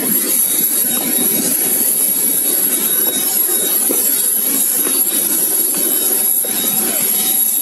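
Aircraft jet turbine running steadily on the apron: a loud rush of air with a constant high whine over it.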